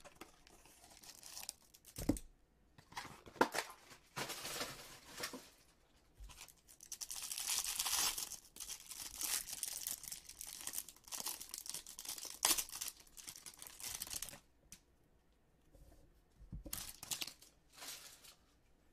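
Packaging of a hanger box of baseball trading cards being torn open and crinkled, in repeated bursts. The busiest tearing is in the middle, followed by a few short crinkles.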